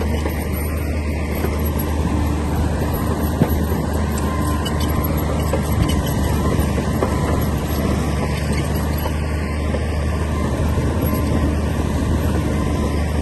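Komatsu D60P bulldozer's diesel engine running steadily, a loud, even low drone.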